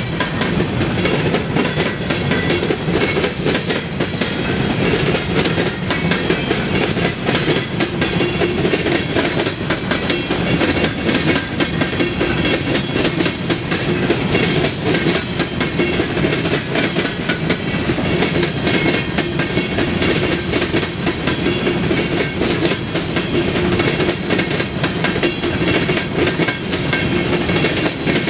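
Empty coal hopper cars of a freight train rolling past at speed: a steady, loud rumble of steel wheels on rail, thick with rapid clicking.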